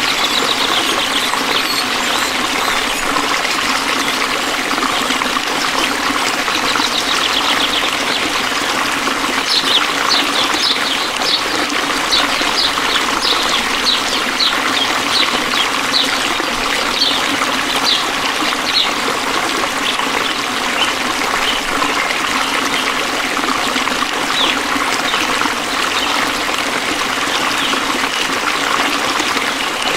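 Steady trickle of flowing stream water, with a run of short, high chirps repeating about twice a second from about ten to nineteen seconds in.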